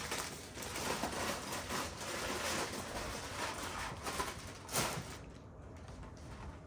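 Faint rustling and crinkling handling noises, with one sharper knock nearly five seconds in, after which it goes quieter.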